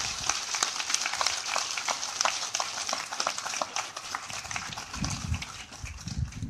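Audience applauding, a crowd of many people clapping that tapers off near the end.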